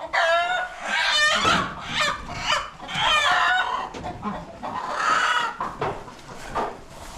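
Chickens squawking: a run of loud, harsh, repeated calls one after another, easing off near the end. These are the alarm squawks of chickens disturbed at roost.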